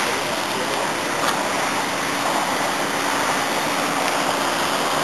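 Steady rushing noise, like wind on the microphone, with a faint steady drone underneath from the engine of a radio-controlled model plane flying high overhead.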